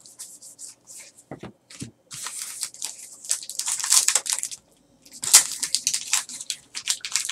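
Trading-card pack wrapper being torn open and crinkled by hand: a run of crackling rustle starting about two seconds in, a brief pause, then more crinkling near the end. Soft card-handling ticks come before it.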